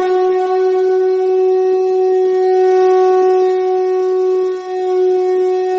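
Conch shell (shankh) blown in one long, steady, loud note, with a brief waver about four and a half seconds in.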